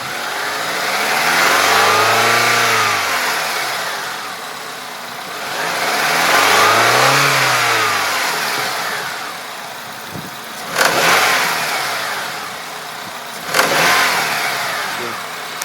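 Honda K20A inline-four engine revved slowly from idle and back down twice, then blipped sharply twice near the end, while its owner chases an unexplained knock.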